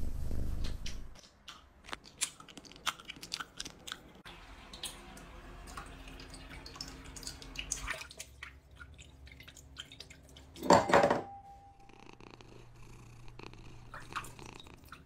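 A cat purring for about the first second, then scattered light clicks and taps, with one short, loud noise about eleven seconds in.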